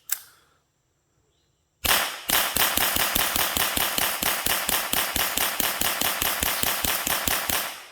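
Gunfire: one shot, then from about two seconds in a rapid, even string of shots, about six a second for some six seconds, stopping just before the end.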